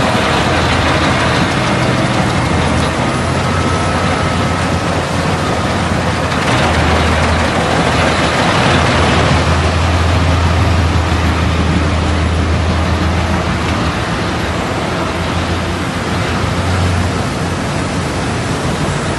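Wood chipper running, chipping small logs and blowing the chips through a spout into a chip store: a steady deep engine drone under a broad rushing noise that swells for a few seconds in the middle.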